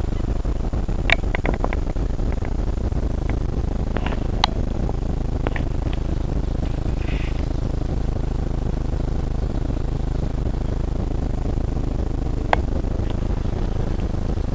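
Steady low outdoor rumble, with a few sharp clicks about a second in, around four seconds in and near the end.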